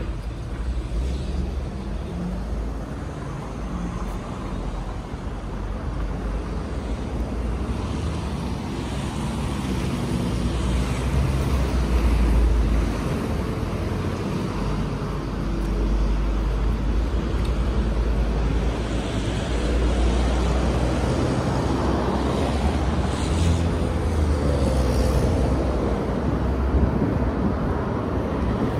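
City street traffic: a continuous rumble of cars and other vehicles going by, swelling somewhat louder about ten seconds in.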